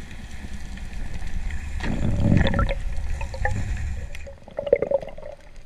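Muffled rushing and gurgling of water heard underwater as a diver swims, surging louder about two seconds in, with a few sharp clicks near the end.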